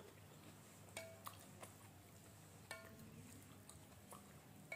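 A few light, scattered clinks of a metal spoon and fork against a glass bowl, some with a short ring, over near silence.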